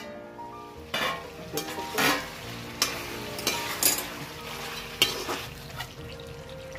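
Metal spoon scraping and knocking against steel cookware, about six strokes roughly a second apart, as ground masala paste is added to chicken cooking in the pan, with a light sizzle underneath.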